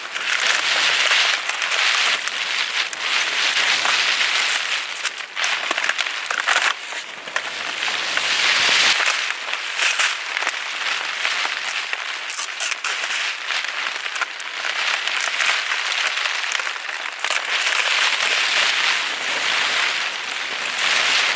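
Heavy rain and wind in a storm: a dense, steady hiss that swells and eases every few seconds.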